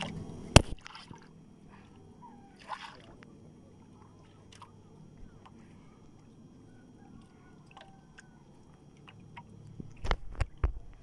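Quiet water sloshing against a small boat's hull, with scattered faint clicks, one sharp knock about half a second in and a quick run of knocks near the end.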